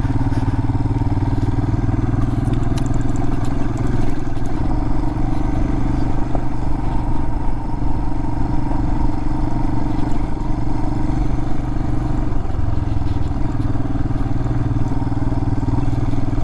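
Adventure motorcycle engine running steadily while riding a gravel road, with tyres rattling over the loose surface. The engine note rises slightly about four seconds in and drops back near twelve seconds.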